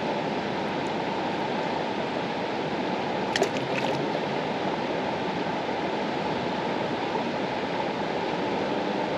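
River water flowing with a steady, dense rush. A short cluster of sharp clicks comes about three and a half seconds in.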